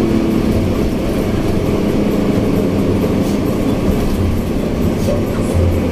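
Intercity bus on the move, heard from the front of its cabin: a steady engine drone and road rumble with a pulsing low hum.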